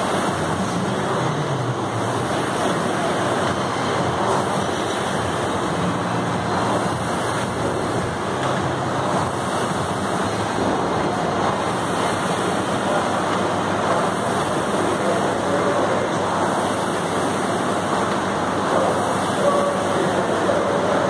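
Air-resistance rowing machine's fan flywheel whooshing steadily under continuous rowing strokes.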